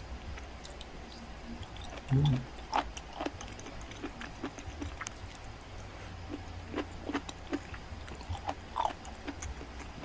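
A person chewing a burger close to the microphone, with scattered wet smacks and clicks of mouth sounds. There is a brief louder sound about two seconds in.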